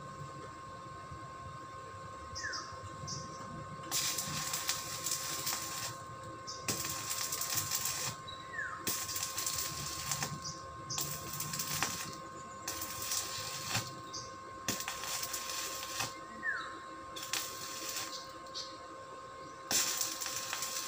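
Arc welding on a steel gate frame: a series of short welds, about eight, each a second or so of crackling hiss, starting a few seconds in.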